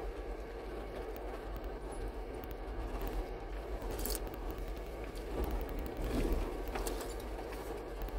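A 4x4 driving over a rocky gravel trail, heard from inside the cab: a steady low engine rumble and tyre noise, with scattered small clicks and rattles.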